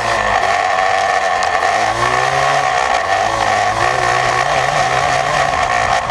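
Yamaha Blaster's single-cylinder two-stroke engine under way through an FMF Fatty expansion pipe and Power Core 2 silencer, its revs climbing about two seconds in, holding, then easing off near the end. A heavy rushing noise lies over the engine.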